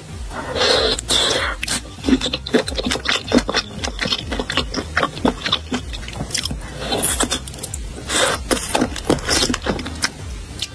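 Close-miked eating sounds: a person biting and chewing sauced baby octopus and a sausage, with many quick wet mouth clicks and smacks.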